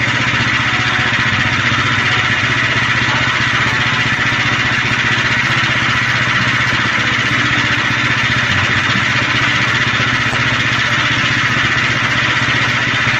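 Engine of a Norwood LM30 portable band sawmill running steadily under even load, as in milling a log.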